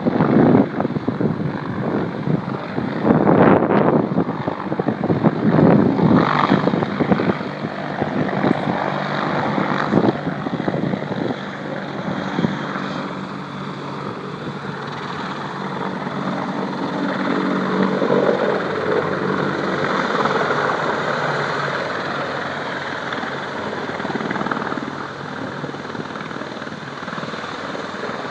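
AH-64D Apache Longbow helicopter running with a steady hum of tones, while gusts of wind buffet the phone's microphone through roughly the first ten seconds.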